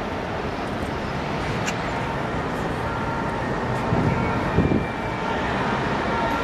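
Distant city traffic rising from the streets far below, a steady hum, with wind on the microphone and a louder gust about four seconds in.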